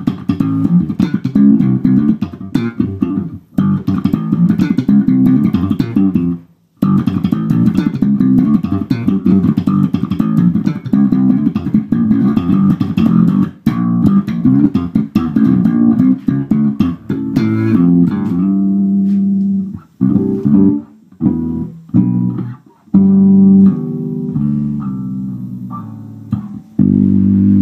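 Warwick electric bass guitar played funky: a fast, busy run of plucked notes. Later it changes to fewer, longer held notes with short stops between them.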